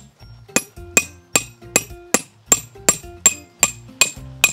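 A hammer driving a forged steel tent peg into the ground: about eleven sharp metallic strikes at a steady pace of roughly two and a half a second, each ringing briefly.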